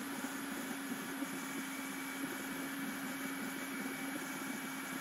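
CNC router's trim-router spindle running at a steady whine as its 2 mm downcut bit cuts lettering into the sign blank.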